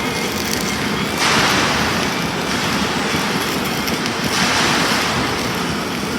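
Self-shielded flux-cored arc welding: a steady, dense crackle from the arc, with two louder hissing surges lasting about a second each.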